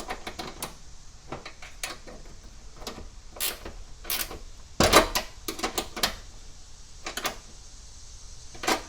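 Irregular plastic clicks and knocks of a bumper cover being pushed into Quik-Latch quick-release bumper latches, with the loudest knock about five seconds in.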